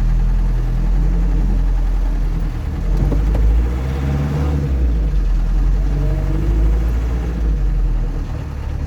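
Freshly restored Land Rover Series 3 engine pulling away and driving. Its note rises and falls a few times as it accelerates.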